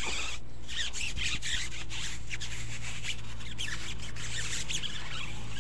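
Scrubbing a foam-soaped car tyre and alloy wheel by hand, wet irregular rubbing strokes with short squeaks.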